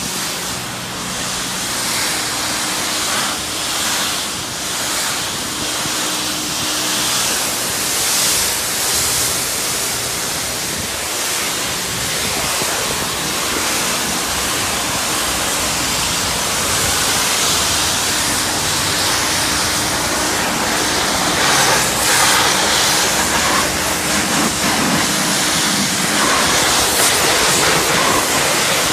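High-pressure car wash wand spraying: a steady hiss that swells a little in the second half, over a faint steady hum.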